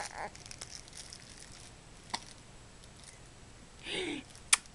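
Faint rustling and crinkling, then a short breathy coo from a three-month-old baby about four seconds in, followed by a sharp click.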